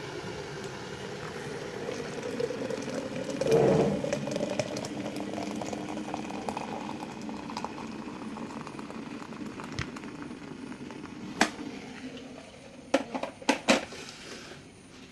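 Hot water being poured from a kettle into a French press onto ground coffee: a steady pouring and gurgling, loudest about four seconds in. Near the end come a few sharp clicks and clinks.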